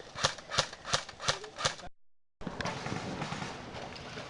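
Airsoft guns firing a string of five sharp single shots, about three a second. The sound cuts out abruptly just before halfway, then a steady rushing noise follows.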